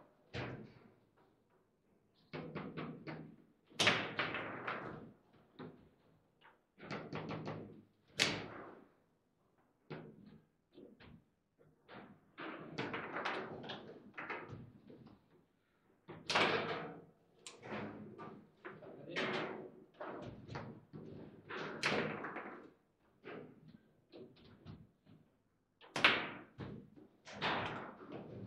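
Table football play: the ball is struck by the plastic players and bangs against the walls and goal, with rods knocking as they are shot and blocked, in irregular bursts of sharp knocks and clacks. The hardest shots land about 4 s, 8 s and 26 s in.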